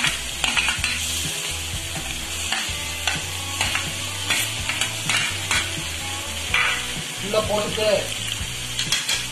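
Raw chicken pieces being scooped with a metal slotted spoon and dropped into a pan of small onions frying in hot oil: a steady sizzle with repeated clinks and scrapes of the spoon against the steel tray and pan.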